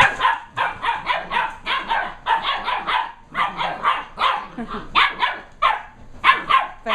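German Shepherd puppies barking in a rapid string of short, sharp yaps, about three or four a second, as they fence-fight, barking at each other across a fence.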